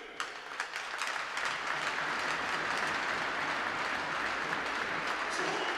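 Ice hockey arena crowd applauding: a few sharp claps, then dense clapping that builds within the first second and holds steady.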